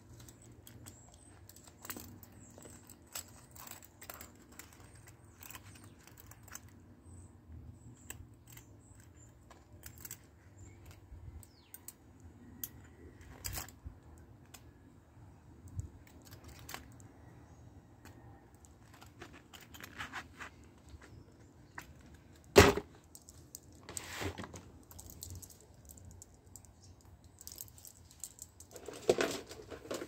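Handling of a stainless folding multitool and its zippered leather pouch: scattered small metallic clicks and clinks, with a sharp knock about two-thirds of the way in, another knock soon after, and a rustle with knocks near the end.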